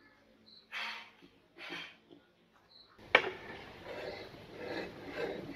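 Two soft swishes of hands sweeping crumbly ground cookie across a plate, then a sharp metal click about three seconds in and continued metallic scraping and rattling as the meat grinder's front ring and holed cutting plate are handled.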